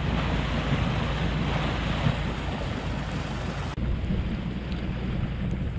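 Wind rumbling on the microphone over the rush of sea water, on a sailing yacht under way. A little under four seconds in the upper hiss drops off suddenly, leaving mostly the low rumble.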